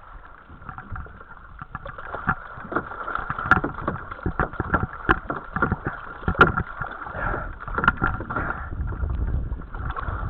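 Water splashing and slapping at the side of a small boat as a hooked giant trevally thrashes at the surface, with many sharp slaps, the loudest about three and a half, five and six and a half seconds in, over a steady high whine.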